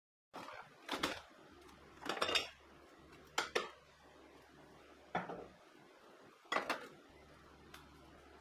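Glass sauce bottles clinking and knocking as they are taken out of a fridge and set down: about seven short, sharp clinks at irregular intervals.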